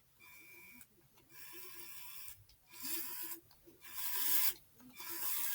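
Small electric motors of an RC Lego semi truck whirring in five short bursts as it is driven and steered, the later bursts louder.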